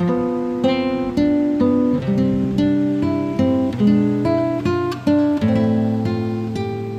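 Background music: an acoustic guitar picking a slow melody, two or three notes a second, each ringing and fading.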